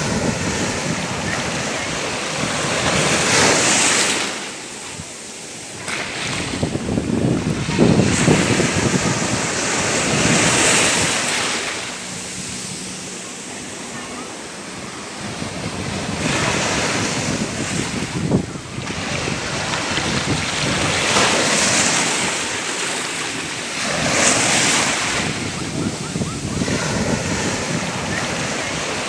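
Ocean waves breaking on a shore: a continuous wash of surf that swells and falls back every few seconds.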